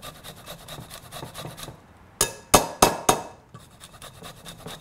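Fresh ginger grated on a fine stainless-steel rasp grater over a glass bowl: quick scraping strokes, several a second. A little past two seconds in come four sharp knocks, then the quick strokes start again.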